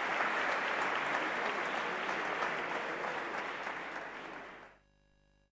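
Audience applauding, the clapping slowly dying down and then cutting off abruptly just under five seconds in.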